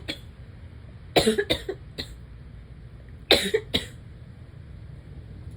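A person coughing persistently in two quick fits of several short, sharp coughs each, the first about a second in and the second about three seconds in.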